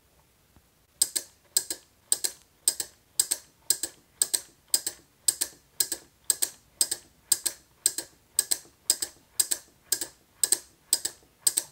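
Relay-based stepper motor driver clicking with each input pulse as the stepper motor steps, a short cluster of relay clicks about twice a second. The clicks start about a second in and stop just before the end.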